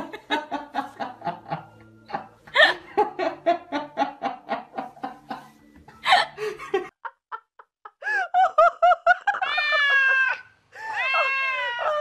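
A person laughing in quick repeated bursts, two long runs of laughter. After a short pause, about eight seconds in, high wavering cries that rise and fall begin.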